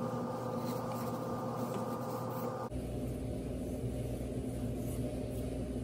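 Steady background hum whose tone changes abruptly about two and a half seconds in, with faint rubbing of a paper shop towel being worked inside a cast-iron bore.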